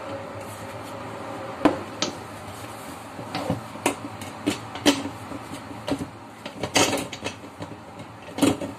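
Clear plastic blender jar and its parts being handled and fitted together: scattered plastic clicks and knocks, with a longer scrape about seven seconds in.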